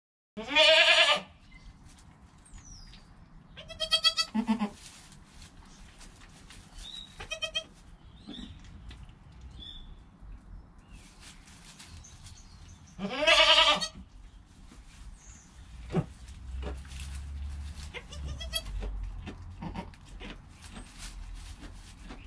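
Young goats bleating in their pen. Several separate bleats, the loudest about half a second in and again about 13 seconds in, with fainter ones between.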